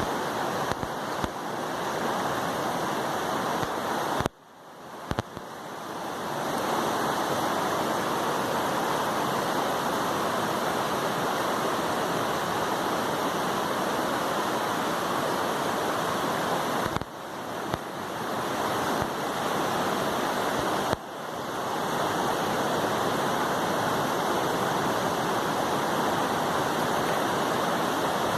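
Steady rushing of a river's flowing water. Three times the sound cuts off abruptly after a click and swells back in over a second or two.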